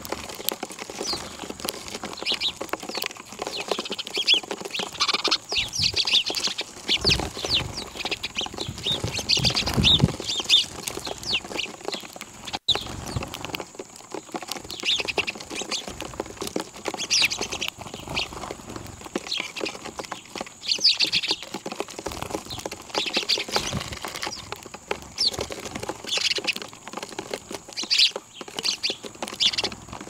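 A flock of small birds at a feeding spot, chirping in short calls one after another, with wing flaps among them.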